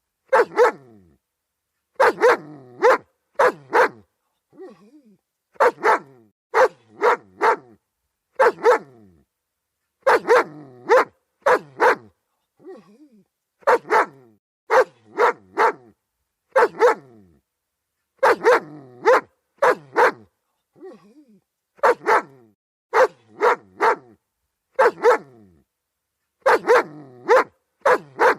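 German Shepherd barking repeatedly in quick clusters of two to four sharp barks, with a short pause between clusters and a few fainter sounds in the gaps.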